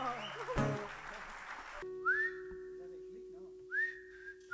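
Voices and crowd noise in a hall cut off abruptly about two seconds in. A steady low hum tone follows, with short whistled notes that swoop up and then hold, a few times over.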